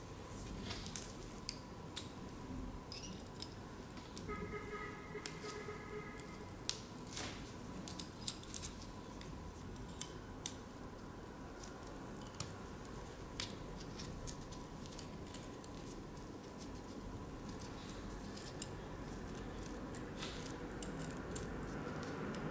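Faint, irregular small metal clicks and ticks from a hex key and screws being worked on a fiber laser's QBH connector housing, with a faint steady tone underneath.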